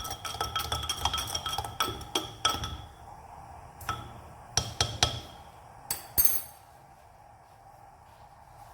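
A spoon stirring masala tea in a clay pot as it comes to the boil, clinking and scraping against the pot's sides. The clinks come thick and fast for the first three seconds, then thin out to a few separate knocks and stop about six and a half seconds in.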